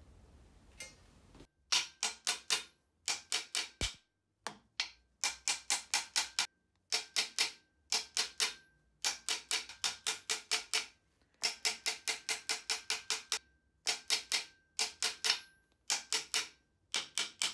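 Hammer blows on the end of an MGB rear half shaft, driving the shaft and its bearing into the axle. The blows come in quick runs of three to six with short pauses between, some runs leaving a brief metallic ring. The shaft won't seat because its splines don't fit the new Quaife differential.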